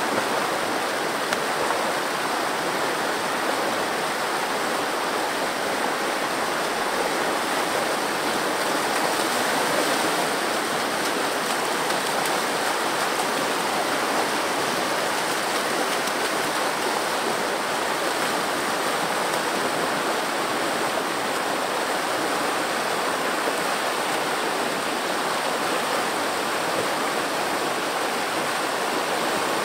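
River rapids rushing steadily as whitewater pours down a chute over flat sandstone slabs.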